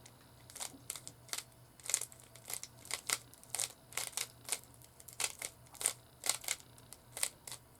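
Plastic Rubik's Cube being twisted by hand: a run of quick, irregular clicks as the layers turn, about three or four a second.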